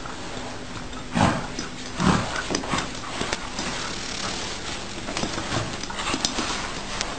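A pet animal's short noises: two louder ones about one and two seconds in, then a few smaller ones, with some light clicks near the end.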